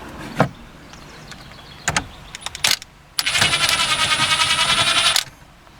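A few sharp clicks of tools and parts being handled, then a cordless power tool runs for about two seconds, starting and stopping abruptly with a rapid even pulsing and a thin high whine, spinning off the loosened 14 mm steering wheel nut.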